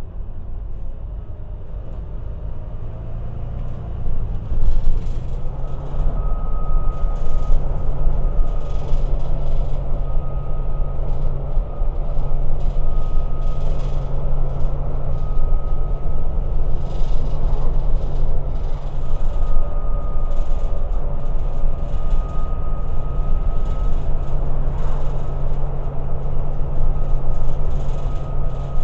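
Volvo B9TL double-decker bus's 9-litre six-cylinder diesel running under way, heard from inside the passenger saloon. It gives a steady low drone with a high whine that comes and goes, and grows louder about five seconds in.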